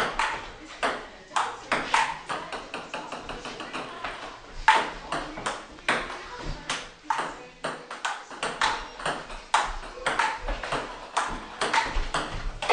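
Table tennis rally: a ping-pong ball clicking off the paddles and bouncing on a table-tennis top laid over a pool table, a steady back-and-forth of sharp ticks, a few a second.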